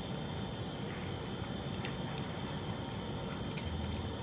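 Steady high-pitched chorus of night insects, with one sharp click about three and a half seconds in.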